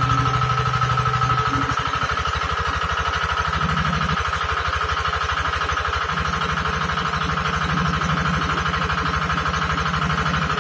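Engine of a hydraulic water-well drilling rig running steadily, with a rapid, even firing beat and a steady high whine over it.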